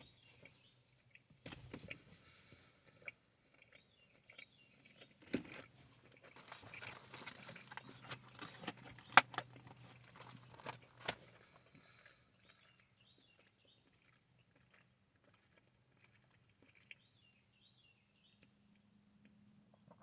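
Plastic fruit-snack packaging being handled, crinkling and rustling with sharp clicks: a few crackles early on, then a longer stretch of dense crinkling that stops about eleven seconds in.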